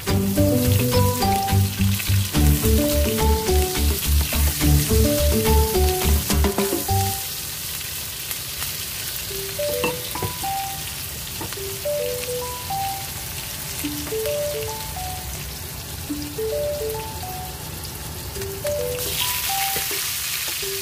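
Sliced onions sizzling as they fry in hot oil in a wok, with the sizzle growing louder near the end, when cooked chicken and shrimp are in the pan. Background music with a melody plays over it, with a heavy beat for the first seven seconds.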